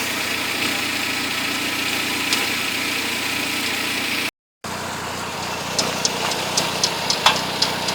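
Mercedes-Benz W201 engine idling steadily. In the second half, sharp irregular clicks come from around the power steering pump: a stray noise in the power steering.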